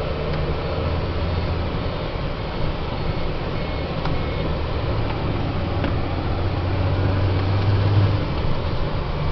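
Volvo VM 260 truck's diesel engine running under way, heard inside the cab as a low hum that strengthens in the second half and eases off just after eight seconds, over a steady hiss of wet road and rain.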